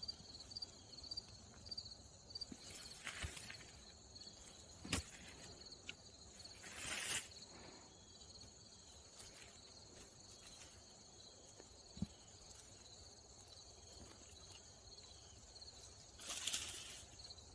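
Faint, steady chirring of crickets in the background. A few sharp clicks and two brief rustling scrapes, about seven seconds in and again near the end, come from the digging.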